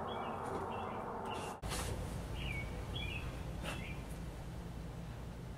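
A small songbird chirping repeatedly, short calls every half second to a second, over steady outdoor background noise. The background noise changes abruptly about one and a half seconds in.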